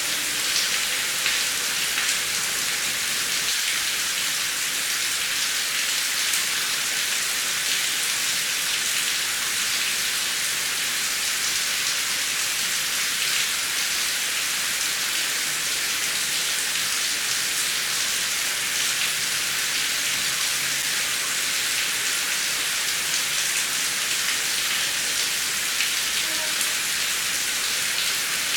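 Heavy rain falling steadily: a dense, even hiss of drops with no thunder.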